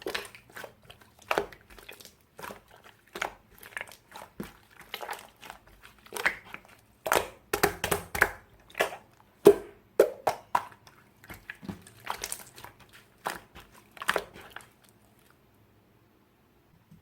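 Hands squishing and poking slime, making irregular sticky clicks and pops, several a second, that stop near the end.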